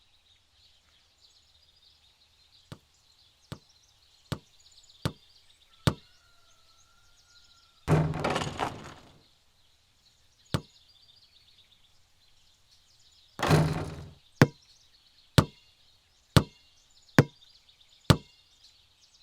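Basketball bouncing on a hard court, single sharp bounces about a second apart, broken twice by a longer, louder hit with a tail. Faint birdsong underneath.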